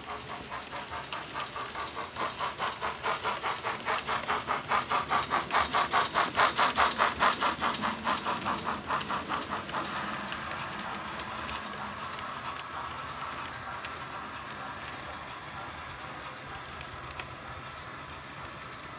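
DCC sound decoder in a Bachmann model Dukedog (Earl class) steam locomotive playing steam exhaust chuffs, about four a second, growing louder as the train comes close, then giving way about halfway through to a steadier running noise as the model coaches roll past on the track.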